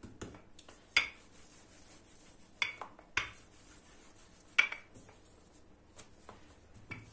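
Rolling out pizza dough on a granite countertop: about half a dozen sharp, irregular knocks and clicks as the rolling pin and hands work the dough against the stone.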